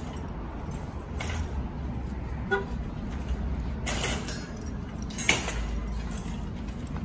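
Parking-lot ambience: a steady low rumble with a few sharp clatters, the loudest about five seconds in, and a brief toot-like tone about two and a half seconds in.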